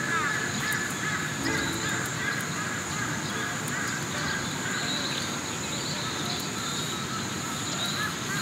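Outdoor ambience of birds calling repeatedly, with short chirping calls scattered throughout, over a steady high-pitched hum.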